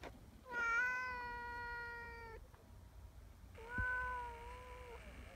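Tabby cat giving two long, drawn-out meows, each held at a steady pitch: the first lasts about two seconds, and the second, shorter one follows about a second later.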